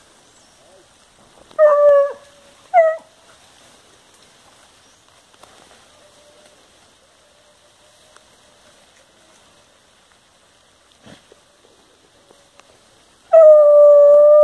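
Hunting dog howling in three steady, pitched calls: two short ones early and a longer one near the end.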